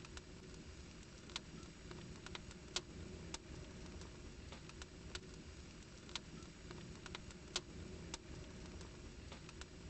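A fire in a fireplace crackling, with irregular sharp pops about one or two a second over a low, steady rumble.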